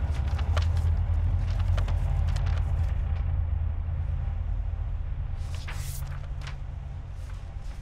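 A deep, steady low drone that slowly fades, with paper rustling and book pages being turned: a flurry of crisp rustles in the first few seconds and another about six seconds in.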